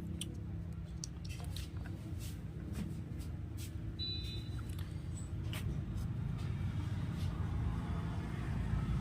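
Faint scattered clicks and taps of small parts being handled, over a steady low rumble like road traffic, with one brief high tone about four seconds in.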